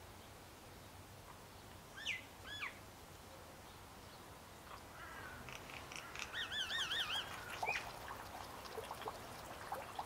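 Songbirds calling: two quick gliding whistled notes about two seconds in, then a louder run of wavering, warbled notes around the middle, and scattered short notes near the end.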